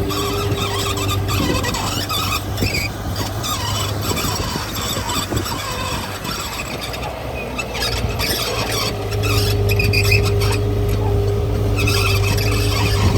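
A bulldozer working: its diesel engine runs steadily while its steel tracks give a continuous high-pitched squealing. The engine grows louder from about nine seconds in.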